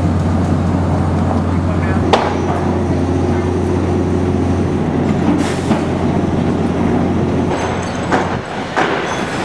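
Construction-site noise: a steady low drone of heavy machinery with a few sharp knocks, the loudest about two seconds in. The drone falls away near the end.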